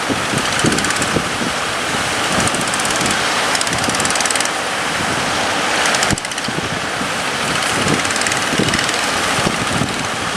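Wind buffeting the microphone over the rush of sea waves, with a boat engine running underneath; the sound changes abruptly about six seconds in.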